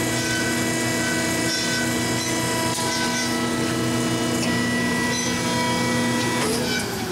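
Marvel 15A9 automatic horizontal band saw running, a steady hum with a whine above it. Near the end the steady tones break off and one falls in pitch.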